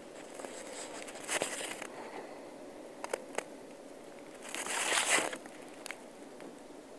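Rustling or crinkling in two bursts, a short one about a second in and a louder one about halfway through, with a few light clicks between them.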